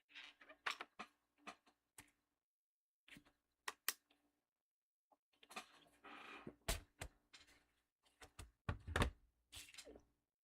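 Irregular handling clicks and knocks, several of them heavier thuds, with a short rustling scrape about six seconds in.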